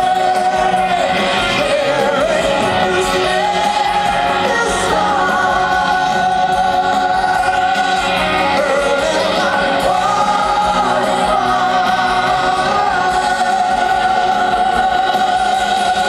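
Rock band playing live, recorded from the crowd: voices hold long, wavering sung notes over electric guitars, keyboards and drums.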